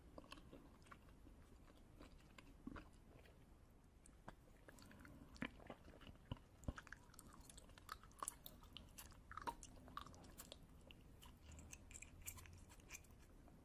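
Quiet, close-up chewing of crunchy food: irregular crisp crunches and mouth clicks, busiest in the middle.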